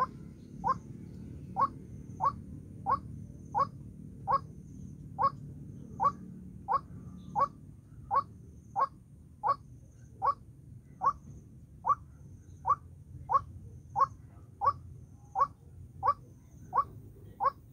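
White-breasted waterhen calling: one short note repeated very evenly, about three every two seconds.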